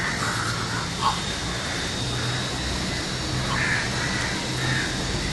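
Steady outdoor city background noise with a low hum, and a few faint, brief sounds in the mid range.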